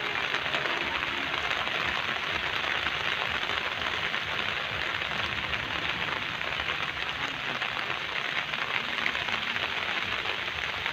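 Steady rain falling on garden shrubs and leaves: an even hiss.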